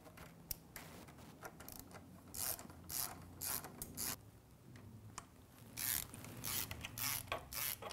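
Hand ratchet with a Torx bit clicking in short back-and-forth strokes as the lower crash bar bolts are run down. The strokes come in two groups with a short pause between them.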